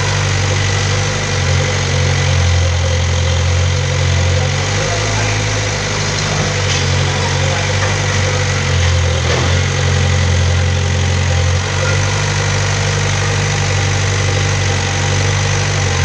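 Kobelco mini excavator's diesel engine running steadily with a deep, even hum.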